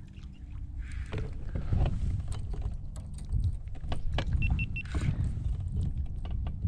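A hooked redfish being fought to the side of a kayak: splashes from the fish at the surface and handling noise from the rod and reel, with many sharp clicks and knocks on the hull and the pole-mounted camera over a low rumble.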